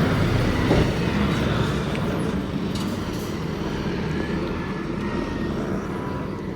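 Heavy diesel vehicle engine running loudly, with a deep rumble that slowly fades.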